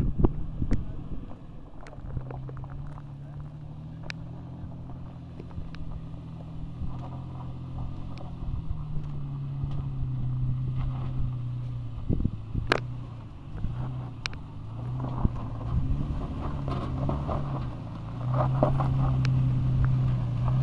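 Toyota Tacoma pickup's engine running at low revs as the truck crawls down a rocky dirt trail, its pitch rising and falling a little, with scattered sharp clicks of stones popping and crunching under the tyres. The engine grows louder near the end as the truck draws close.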